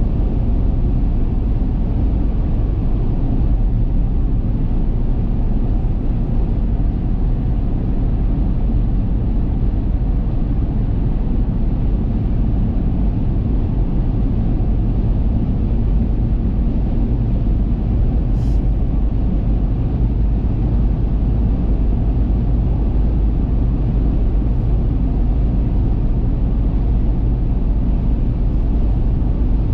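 A car cruising at highway speed: a steady low rumble of tyre and road noise with engine hum.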